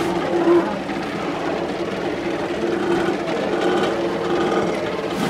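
Chorus of a large mixed colony of double-crested and Brandt's cormorants: many low croaks and grunts overlapping in a steady, unbroken din.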